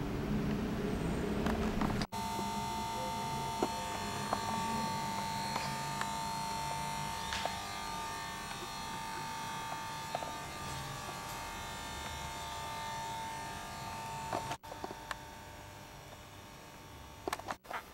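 A steady electrical buzz with a constant high hum tone. It cuts out for an instant about two seconds in and again near the end, and is fainter after the later break.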